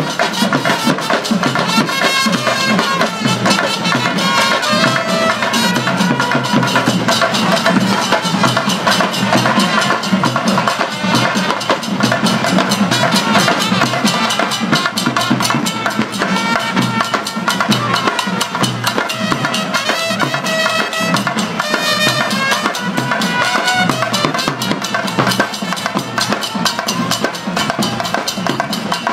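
Sri Lankan perahera drumming: many drums beating fast and densely without a break, with a pitched melody line rising and falling above them.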